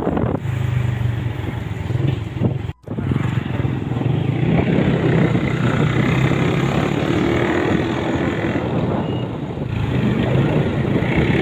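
Motorcycle engine running at a steady cruise while riding, with wind rushing over the microphone. The sound cuts out for an instant about three seconds in.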